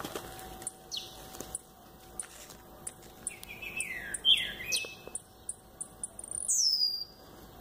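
Caged blue-black grassquit (tiziu) calling and singing. A string of short high ticks about every half second, a few loud sliding notes about halfway through, and one loud high note sweeping down near the end.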